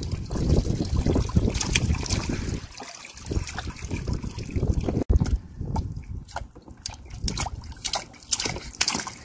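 Water splashing and trickling in a toddler's plastic water table as small hands slap and scoop it, with drips running off the toy's spout. At times wind buffets the microphone.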